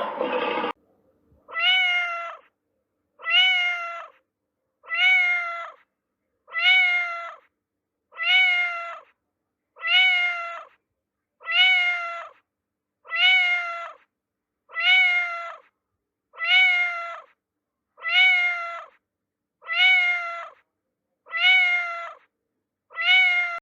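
A domestic cat meowing: the same short meow repeated fourteen times at an even pace, about one every second and a half or so.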